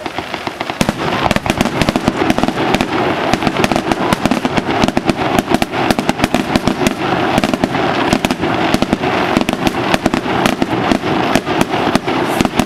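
Fireworks display: a dense, rapid run of popping and crackling bursts, many per second, which thickens about a second in.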